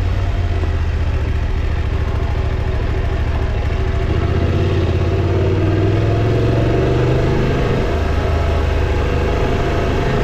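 Motorcycle engine running while riding, its note rising as it accelerates from about four seconds in and dropping back about eight seconds in, over steady road and wind noise.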